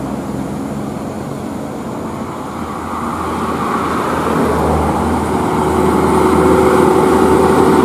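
Diesel engines of two coach buses climbing round a bend and passing close by, growing steadily louder as they approach, with a steady engine whine joining in about three seconds in.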